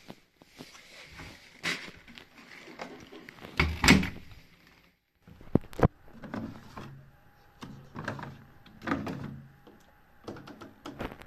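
Front-loading washing machine door being swung shut with a loud thud about four seconds in, among knocks and clicks from handling the machine. More clicks follow, with the programme dial being turned near the end.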